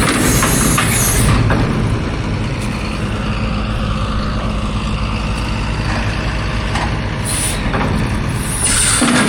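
Tractor engine running steadily, with a loud hissing rush at the start and again near the end.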